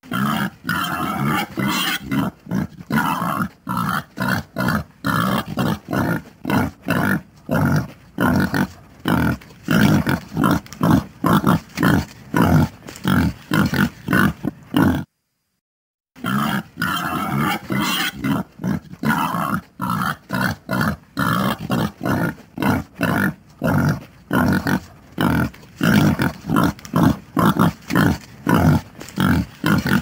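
Wild boar grunting in a quick, steady run of short grunts, two or three a second, broken by about a second of silence midway.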